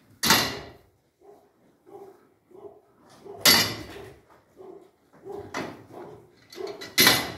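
Dairy cows eating hay at a metal feed barrier: a run of soft, quick sounds about twice a second as they pull at the hay and chew, with four loud rustling bursts as they toss mouthfuls about.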